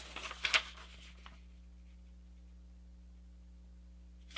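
A sheet of printer paper being folded in half by hand, rustling and sliding for about the first second. Then the room is quiet apart from a faint steady hum, with a sharp click at the very end.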